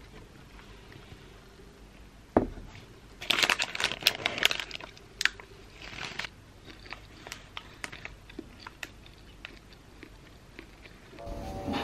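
Eating a hot dog held in a paper wrapper: the paper crinkles and crunches close to the microphone, loudest a few seconds in, followed by scattered quieter clicks and crackles of the paper and chewing. Music comes in near the end.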